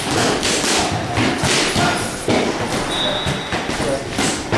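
Boxing gloves landing on focus mitts in a rapid, irregular run of punches, each a sharp smack. A short high-pitched squeak sounds once, about three seconds in.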